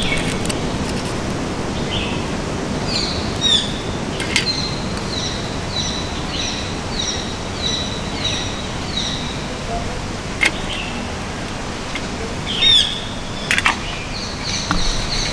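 A bird calling: a run of short, slightly falling chirps, about two a second, for several seconds, and a few more chirps later, over steady background hiss. A few sharp clicks stand out briefly.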